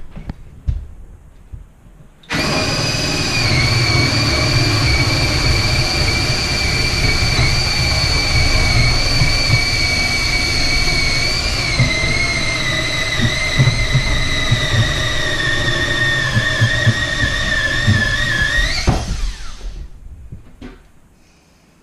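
Power drill boring into a plywood backboard. The motor runs steadily for about 17 seconds, its whine slowly dropping in pitch as the bit bites, then rises briefly just before it stops.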